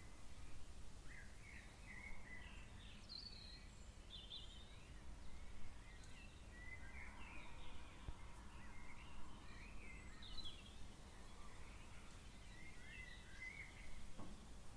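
Several birds giving short chirps and twitters, many quick notes scattered throughout, faint over a low steady rumble.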